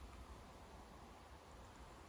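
Near silence: a faint steady hiss with a low rumble underneath, and no distinct events.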